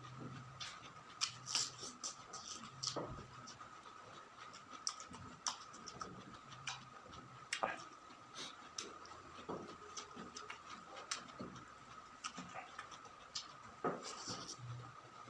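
Close-miked chewing and crunching of food, with many irregular small crisp clicks and soft low thumps, over a faint steady high tone.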